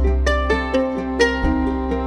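Background music: bright plucked-string notes, like a ukulele, over a steady bass line.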